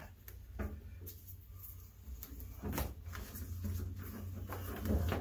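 Faint handling noise as a strand of three-strand nylon line is tucked and pulled through a rope-to-chain splice: light rustling and a few scattered soft clicks, over a low steady hum.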